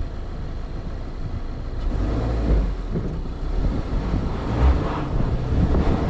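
Subaru Outback driving over a rutted dirt trail: low engine and tyre rumble with uneven low thumps, and wind buffeting the microphone.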